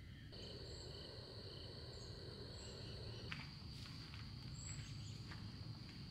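Crickets and other insects chirring in a steady high trill over a low rumble. A few faint clicks and knocks come in the second half.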